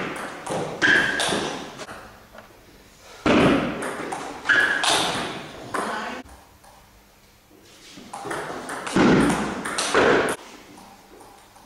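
Table tennis ball clicking off bats and the table in three short rallies, each a quick cluster of hits that echo in the hall, with quiet gaps between them.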